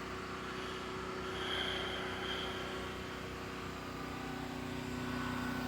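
Faint steady mechanical hum with a few steady low tones, like a distant engine or motor running, and a faint high thin tone from about a second and a half to two and a half seconds in.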